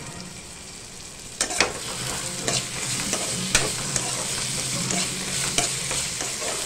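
Shallots and tomatoes frying in oil in a pan, stirred with a perforated steel spatula that scrapes and clacks against the pan, starting about a second and a half in. A steady sizzle runs under the scraping.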